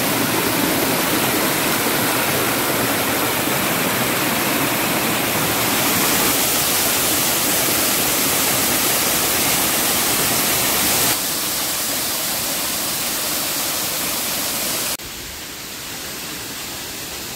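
Waterfall: a steady rush of falling water, which drops abruptly in loudness about 11 seconds in and again about 15 seconds in.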